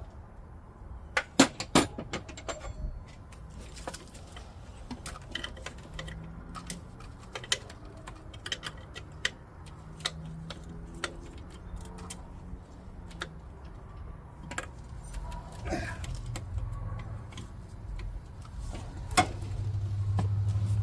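Metal hand tools clinking and tapping on a nut as a wrench is fitted and worked to break it loose, with a cluster of sharp clinks in the first two seconds and scattered lighter clicks after.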